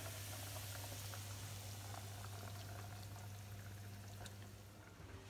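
Spätzle frying in butter in a pan: a steady soft sizzle with small crackles, easing off near the end, over a low steady hum.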